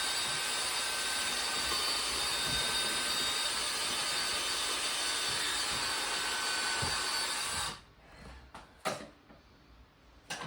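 Electric drill with a masonry bit boring into a concrete-block wall, running steadily with a whine, then stopping suddenly near the end, followed by a few light knocks.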